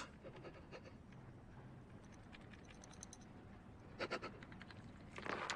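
Near silence from a film soundtrack, with a few brief faint clicks or rustles about four seconds in and again near the end.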